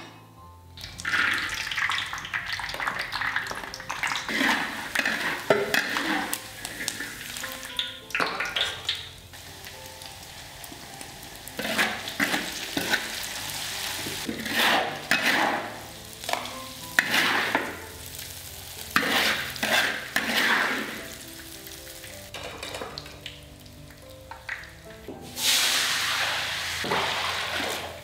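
Hot oil sizzling in a wok as minced garlic and chili fry, swelling into loud surges every few seconds.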